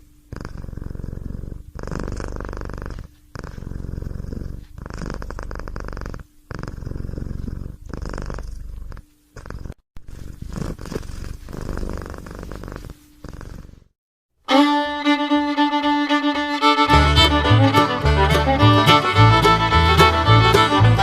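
A domestic cat purring loudly and close up, swelling and easing in pulses about every second and a half with each breath. The purring stops about two-thirds of the way in. Fiddle music starts half a second later, and a beat joins a couple of seconds after that.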